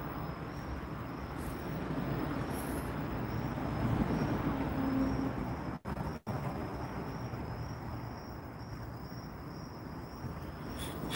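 Steady background hiss and low rumble under a faint, continuous high-pitched cricket trill; the sound cuts out twice for an instant about six seconds in.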